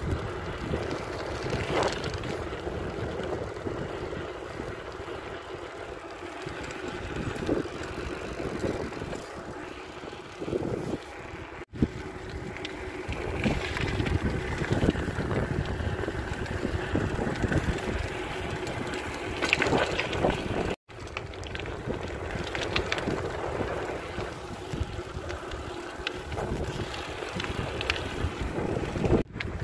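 Riding a bicycle on an asphalt road: wind buffeting the microphone over tyre and road rumble, with occasional knocks from the bike. The sound cuts out for an instant three times.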